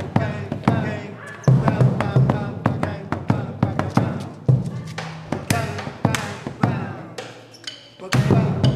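Rope-tensioned, hide-headed drum played with a wooden stick and a hand-held beater: a steady run of sharp strokes, with a deep, ringing stroke about every three to four seconds.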